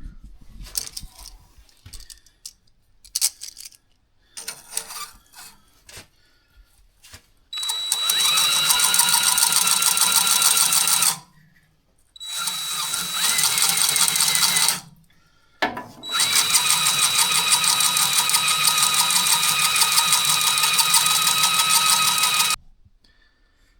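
Small motor-driven hone spinning and grinding inside a motorcycle cylinder bore, run three times for a few seconds each, each run starting with a short rising whine as the motor spins up. Light clicks and handling noises come before the first run. The bore is being honed out to fit a piston.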